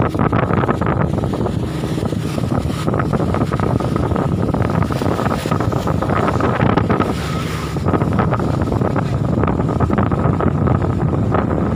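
Fast boat running at speed: steady engine noise mixed with water rushing along the hull, and wind buffeting the microphone.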